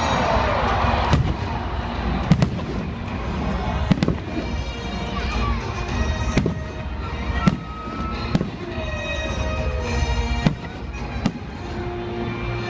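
Aerial fireworks going off in about ten sharp bangs at uneven intervals of roughly a second, over music.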